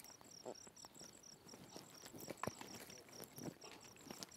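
Crickets chirping faintly in a steady, fast pulsing rhythm, with a few soft clicks and rustles.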